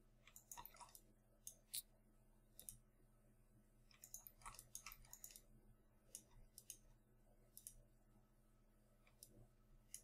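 Near silence, broken by faint, scattered clicks of a computer mouse, some singly and some in quick runs, over a low steady hum.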